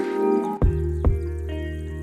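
Background music: short struck, bell-like notes over a low held bass note that comes in about half a second in.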